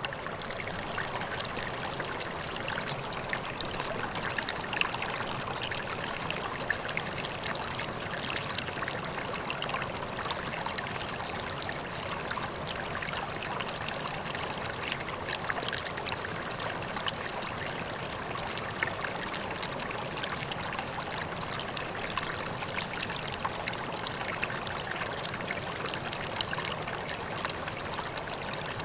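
Koi pond water pouring and trickling steadily, a continuous splashing flow with small droplet splashes throughout.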